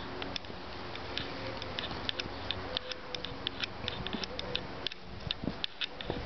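Short, sharp high-pitched ticks, several a second at irregular spacing, over a low steady hum.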